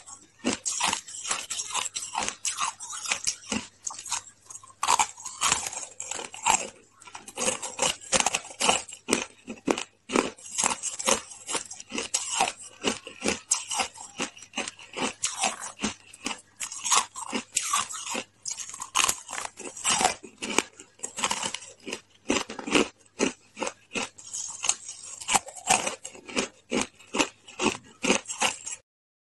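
Close-up crunching and chewing of hard, frosty ice chunks, a quick, irregular run of sharp crackling bites.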